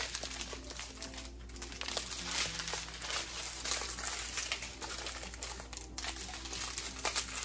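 Crinkling of small plastic bags of diamond painting drills being handled and rearranged, a steady run of irregular rustles and crackles.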